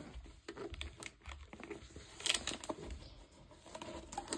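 Rustling and crackling of a rolled-up diamond painting canvas being handled and flattened out, with a sharper crackle a little over two seconds in.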